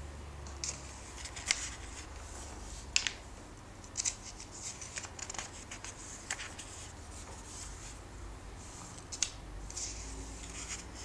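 Glossy paper pages of a comic book being turned by hand, rustling, with several sharp snaps as pages flip over.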